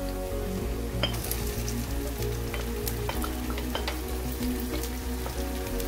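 Hot oil in a kadai sizzling as marinated chicken is tipped onto fried onions, with many scattered pops and crackles.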